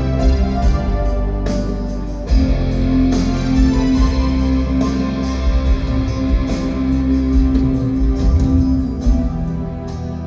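Live rock band playing an instrumental passage: guitars over bass and drums, with a short break in the drums about two seconds in.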